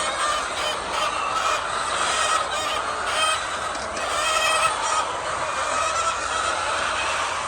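A flock of laying hens clucking and calling over one another, many short overlapping calls.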